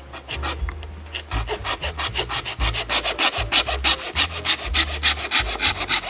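Hand saw cutting through wood, quick back-and-forth rasping strokes at about four or five a second, getting louder after the first couple of seconds.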